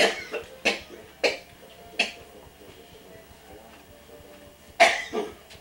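Someone coughing: four hard coughs about two-thirds of a second apart, then two more in quick succession near the end.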